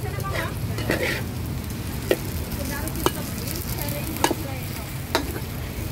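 Food sizzling as it fries in a pan, with a utensil knocking against the pan about once a second, over a steady low hum.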